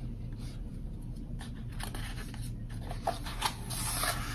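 Paper pages of a hardcover picture book rustling as a page is turned, with the rustle strongest near the end, over a low steady hum.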